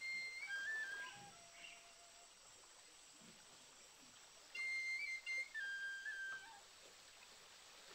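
A clear whistled phrase of held notes stepping down in pitch, sounding twice a few seconds apart over faint forest ambience.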